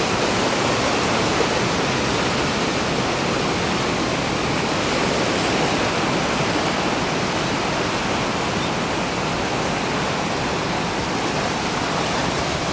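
Ocean surf washing onto a sandy beach, heard as a steady rushing noise with no clear rise and fall of separate waves.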